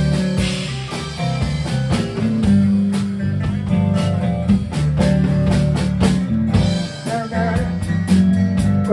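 Live rock band playing an instrumental passage: electric guitars over a steady repeating low riff, with a drum kit keeping the beat.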